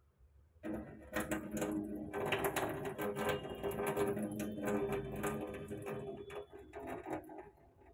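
Whole masoor lentils being rinsed in a metal bowl: water swishing and lentils rattling against the metal, with rinse water splashing out into a stainless steel sink. It starts abruptly under a second in and fades near the end.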